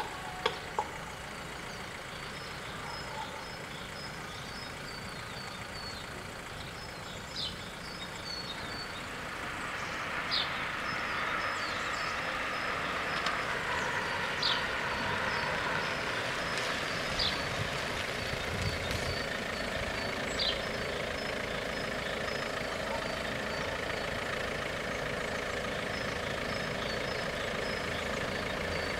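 Level-crossing warning bells ringing in a steady, even rhythm with the barriers down. From about nine seconds in, a wide rushing vehicle noise builds and becomes the loudest sound.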